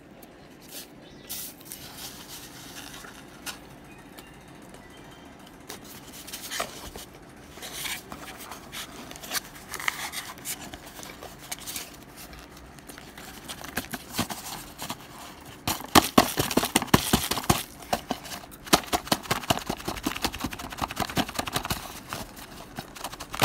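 A knife blade chopping and crunching dry microwave-baked cornstarch chunks. Scattered clicks at first, then a quick run of dense chopping from about two-thirds of the way in.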